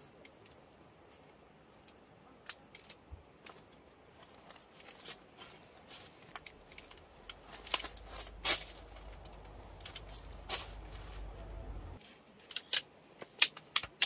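Snap buttons on a fabric cover being pressed shut one after another: a series of sharp clicks with fabric handling. A low rumble runs under them for several seconds in the second half.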